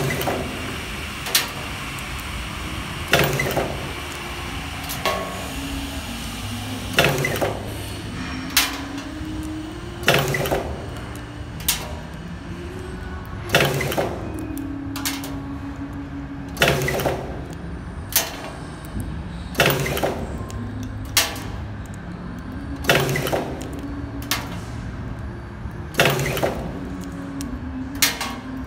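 Nylon cable tie stainless-steel barb inserting machine cycling: sharp metallic clacks of its air-driven tooling repeat about every one and a half seconds over a steady low hum.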